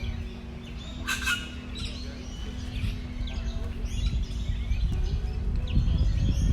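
Birds chirping and calling, with one louder call about a second in, over a low steady hum.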